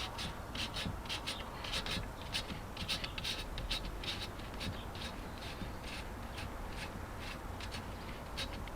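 Short, irregular rubbing and scraping strokes of JB Weld epoxy being spread and smoothed over the damaged area of an alloy wheel. The strokes come thick and fast at first and thin out after about halfway.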